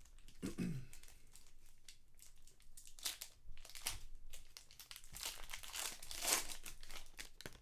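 Foil trading-card pack wrapper crinkling as it is opened and handled, in irregular crackles, loudest past the halfway point.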